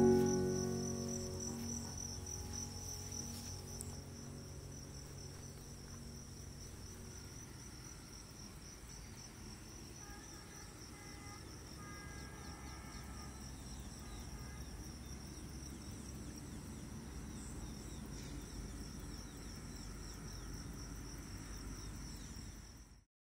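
Steady high-pitched chirring of insects over a faint low rumble. A music chord rings out and fades over the first couple of seconds, and all sound cuts off just before the end.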